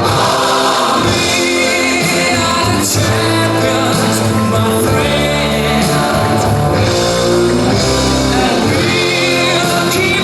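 Loud music with singing and a steady bass line, played over a hall's sound system.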